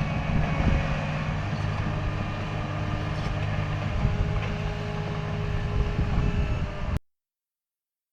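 Bulldozer's diesel engine running steadily with a rough clatter, cutting off abruptly about seven seconds in.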